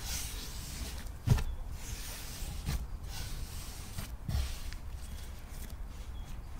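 Soft, dull thuds of a ball of sourdough dough being pressed and turned on a floured wooden table as it is shaped into a round loaf, a few over the seconds, the firmest a little over a second in.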